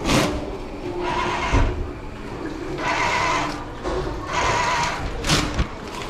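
Paper towels being pulled from a wall-mounted paper towel dispenser in five short bursts of rustling, tearing paper.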